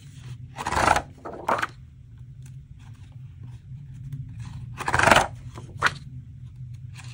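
Sheets of lined note paper rustling and sliding against each other as they are picked up and handled, in a few short bursts.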